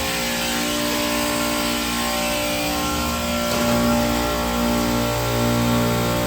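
Trane split-system outdoor condensing unit running: a steady mechanical hum of the compressor and fan, with the low hum growing stronger about three and a half seconds in.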